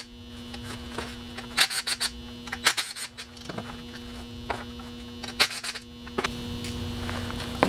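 Cordless impact driver spinning out the already-loosened shift-mechanism bolts of a Yanmar KM2-A marine transmission in three short bursts, at about one and a half, two and a half and five and a half seconds in, over a steady electrical hum.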